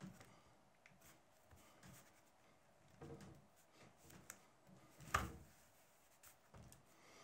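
Faint rubbing and scraping of a small metal tool pressed along the folded-over edge of a leather panel, with one sharp knock about five seconds in.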